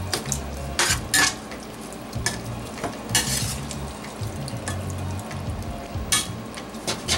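Vegetables sizzling in a stainless steel All-Clad sauté pan while a slotted metal spoon stirs them, scraping and clicking against the pan, with one longer scrape about three seconds in.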